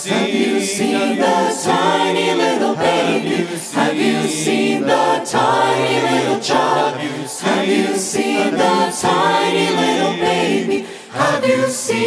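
Mixed men's and women's vocal ensemble singing in harmony into microphones, a cappella, with a short break near the end before the next line.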